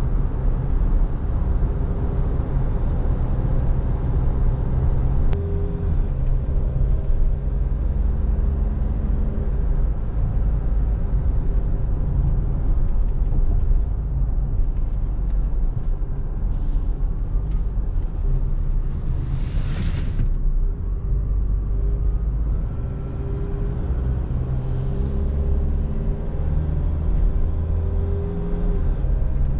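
In-cabin drive sound of a 2021 Nissan Navara pickup under way: its 2.5-litre diesel engine and the tyres on the road make a steady low rumble. A few short hissing swells rise over it around the middle and once more later.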